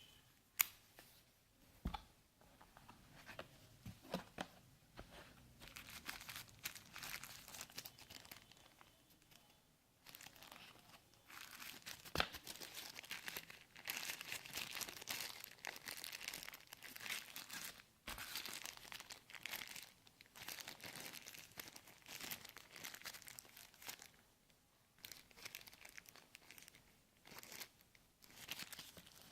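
Packaging being unwrapped and handled: plastic and paper crinkling and tearing in irregular stretches, with a few sharp knocks.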